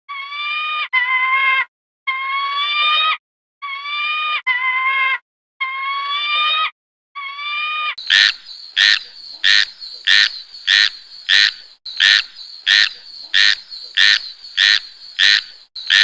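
A series of pitched animal calls, each about a second long with short breaks between them. About eight seconds in they give way to quick, even calling of about three calls a second.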